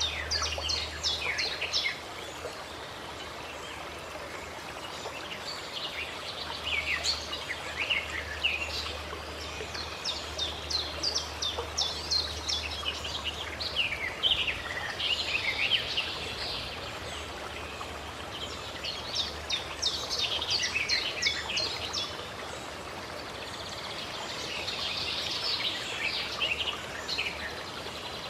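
Songbirds singing in short repeated phrases of quick chirps and trills, coming in groups every few seconds, over a steady rush of flowing water.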